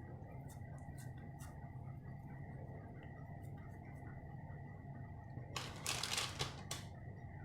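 Quiet kitchen handling of cookie dough being scooped into portions: a few faint clicks over a steady low hum, then a brief scraping rustle about five and a half seconds in.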